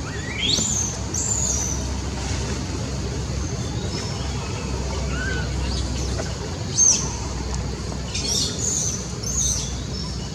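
Short high-pitched animal squeaks: the first sweeps sharply upward, the loudest comes about two-thirds through, and three more follow near the end. A steady low rumble runs underneath.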